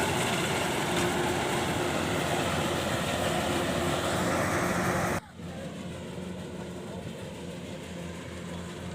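Kubota 105 rice combine harvester running: a loud, dense machine noise with a steady engine hum under it. About five seconds in, the noise drops suddenly to a much quieter steady engine hum.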